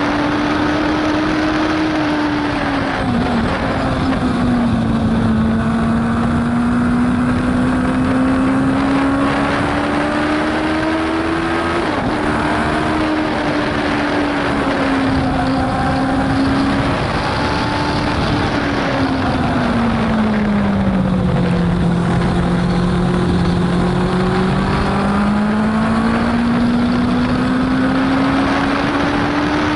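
Racing sidecar engine heard onboard at speed, its note climbing under acceleration and sinking as it slows into corners, with brief breaks in the note about twelve seconds in and just before the end. A steady rush of wind and road noise lies under it.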